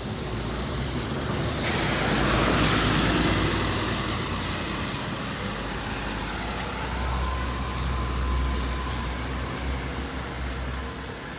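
2009 NABI 40-LFW hybrid-electric city bus driving by, its road and drivetrain noise swelling to its loudest about two seconds in over a steady low hum, with a faint steady whine from about seven seconds in.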